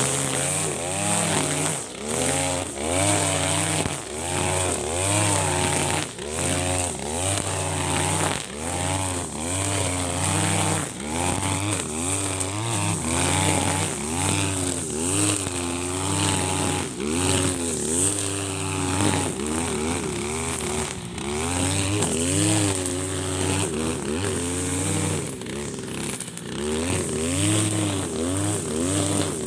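Husqvarna 542RBS 42cc two-stroke backpack brush cutter running hard with 2.2 mm nylon line, cutting thick, tall grass. The engine pitch rises and falls every second or two as the line's load changes, over a constant high hiss with scattered sharp ticks.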